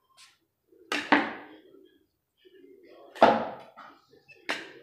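A perforated steel skimmer knocking against the aluminium pot and platter as cooked rice is scooped out and tapped off: three sharp knocks, about a second in, just after three seconds (the loudest) and near the end, with soft scraping of rice between them.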